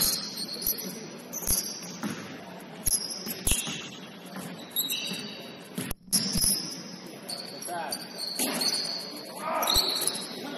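Basketball game on a hardwood court: the ball bouncing in scattered thuds and sneakers squeaking in short, high-pitched squeals.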